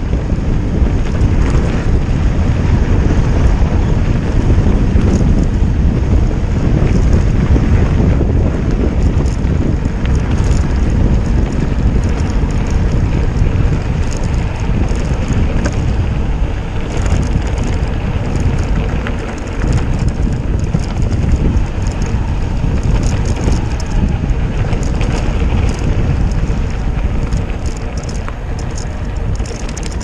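Wind buffeting the action camera's microphone while a mountain bike rolls along a gravel road, with a constant crackle of the tyres crunching over loose stones.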